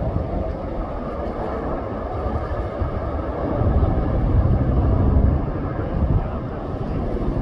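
Firefighting helicopter flying with its water bucket slung below, heard as a steady low rotor and engine rumble that grows louder for a couple of seconds in the middle.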